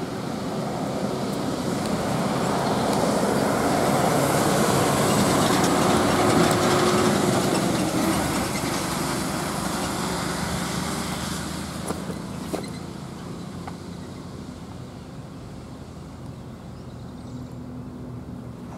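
MSRTC state transport bus's diesel engine as the bus drives past. The sound builds to its loudest a few seconds in, then fades as the bus moves away.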